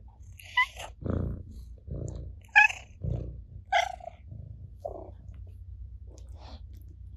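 Domestic cat purring close up, a steady low rumble, broken by a few short, sharp pitched cat calls, the loudest about two and a half seconds in.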